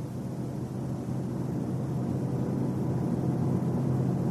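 Car driving at road speed: a steady hum of engine and road noise that grows slowly louder.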